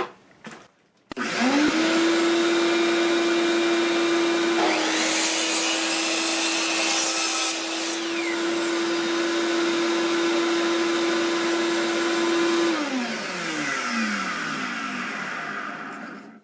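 Craftsman 10-inch sliding miter saw making a test cut. The motor starts about a second in and quickly winds up to a steady whine. The blade then cuts through a board for about three seconds, adding a loud, high sawing noise. The saw is switched off and winds down with a falling whine.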